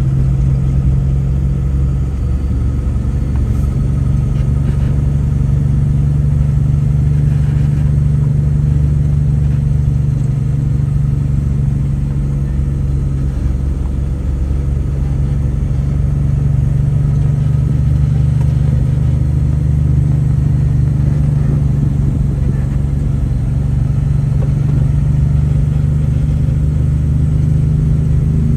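Delivery truck's engine running steadily on the road, a continuous low drone that shifts in pitch about two seconds in and again about halfway through.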